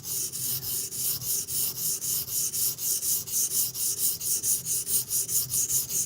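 D2 steel knife blade ground back and forth on a silicon carbide benchstone: a fast, even scraping, about four strokes a second.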